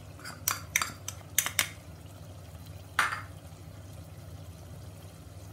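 A metal spoon clicking and scraping against a small ceramic bowl, about six quick taps in the first second and a half as red chili powder is knocked out, then one louder clink about 3 seconds in. A low steady hum runs underneath.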